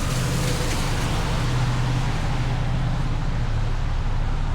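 A car driving along: a steady low drone and road noise, with a high hiss that thins out over the first couple of seconds.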